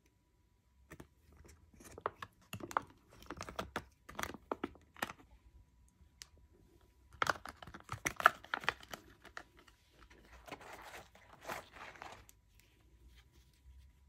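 Soft plastic water pouches of a Sawyer Squeeze filter system crinkling and crackling as they are handled and folded, in two spells of sharp crackles followed by a softer rustle near the end.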